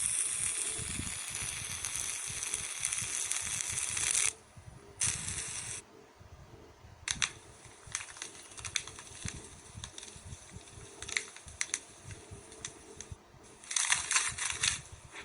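A steady crackling hiss that cuts off abruptly about four seconds in, then scattered sharp clicks and crackles, with a louder burst of crackling near the end.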